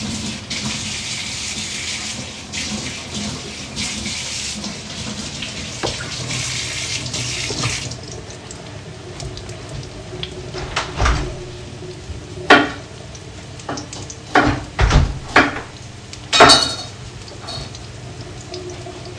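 Kitchen tap running into a steel sink as rosemary sprigs are rinsed under it, stopping abruptly about eight seconds in. After that come a few scattered knocks and clatters of kitchen things over a quieter background.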